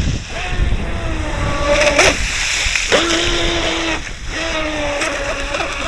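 Electric RC speedboat running fast on open water: the motor's whine shifts up and down in pitch with the throttle, over the hiss and splash of the hull's spray, with louder splashes about two and three seconds in.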